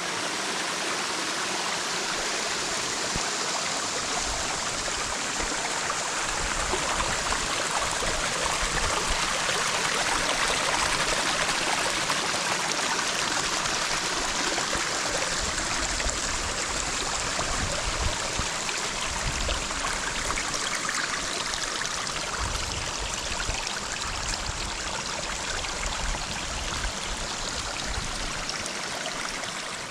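Mountain stream flowing: a steady, unbroken rush of running water.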